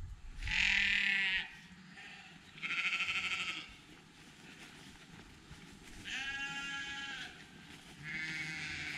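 Livestock bleating in a field: four loud, quavering bleats a second or two apart, each about a second long.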